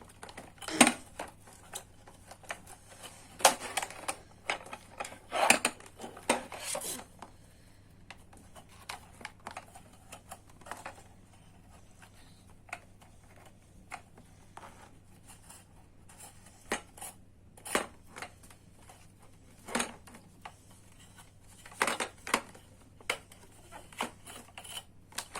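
Small hard plastic toy and its packaging handled at close range: irregular clicks, taps and scrapes as the toy car is pried loose from the fastenings holding its wheels, in clusters with quieter gaps between.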